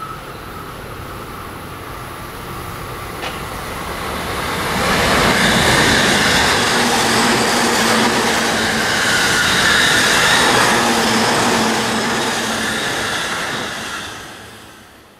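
A JR East E531 series Joban Line rapid train passing close by. Its running noise builds from about four seconds in, stays loud for about eight seconds with a steady hum under it, and fades away near the end.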